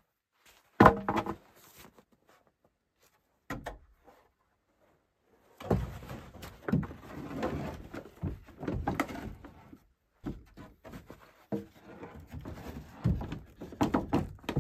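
Sawn wooden boards being set down and stacked on a pile: one loud hollow wooden clack about a second in, then after a quiet spell a long run of knocks, scrapes and clatter as boards are laid on the stack.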